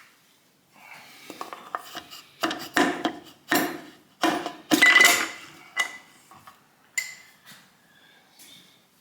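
Metal engine parts and hand tools clattering and clinking as the engine is taken apart, a dense run of rattles in the middle followed by a few single ringing metallic knocks.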